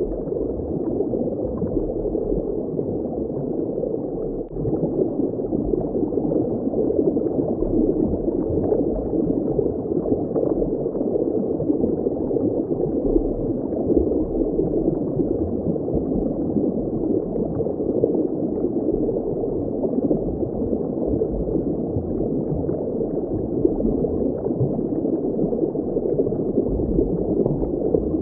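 Underwater ambience: a steady, muffled bubbling wash of water with no high end.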